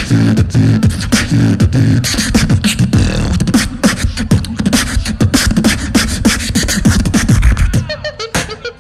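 Human beatboxing into a handheld microphone: a fast, dense run of sharp clicks and snare-like hits over a pitched, hummed bass line. It drops in level about eight seconds in.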